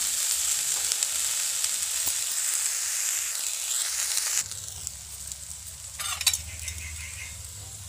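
Julienned raw potatoes and peanuts sizzling in ghee in a kadhai, a dense steady hiss. A little past halfway the sizzle drops abruptly to a quieter level, and near the end there is a brief knock.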